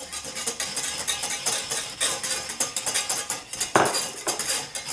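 Wire whisk beating a thin cream sauce in a stainless steel saucepan: a quick, continuous scraping rattle of the wires against the pan, with one louder knock a little under four seconds in.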